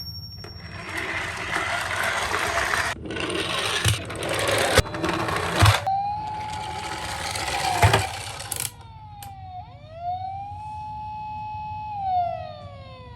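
Toy minicars rolling down a slope, making a rolling rumble with a few sharp knocks, then a toy car's electronic siren wailing: its pitch drops, rises, holds and falls again.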